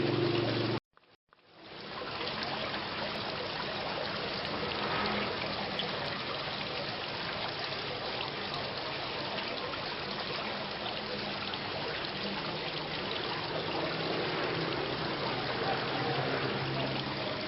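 Steady rain falling. It cuts out suddenly a little under a second in and fades back up within about a second, as at the seam of a looped recording.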